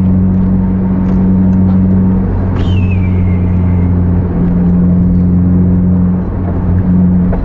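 Car engine and tyre noise heard from inside the cabin at speed: a steady low drone. About two and a half seconds in, a short high note falls in pitch.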